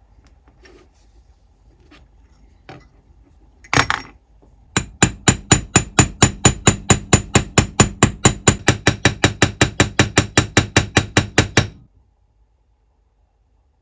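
Rapid, even light hammer taps on metal, about six a second for some seven seconds, each with a short metallic ring, stopping abruptly. They follow a single louder scraping knock.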